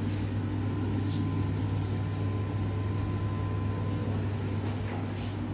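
A steady low hum that holds through the whole stretch, with a few faint soft knocks.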